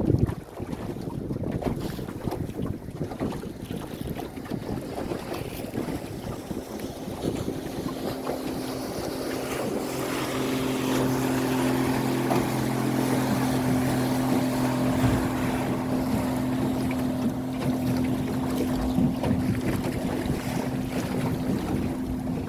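Outboard motor running steadily as a small motorboat travels over the water, with wind on the microphone and water rushing past. The engine's drone stands out more clearly from about eight seconds in.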